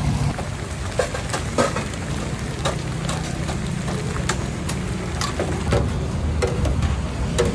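Irregular sharp clacks and knocks, like kitchen utensils at work, over a steady low rumble.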